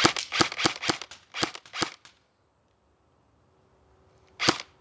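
JG MP5 SD5 airsoft electric gun fired in semi-auto: a quick run of sharp shots over the first two seconds, a pause, then one more shot near the end.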